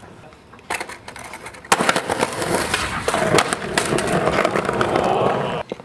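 Skateboard rolling over concrete, the wheels' noise scattered with clacks and knocks of the board, as a trick attempt ends in a slam and the board rolls away from the fallen skater. It cuts off suddenly near the end.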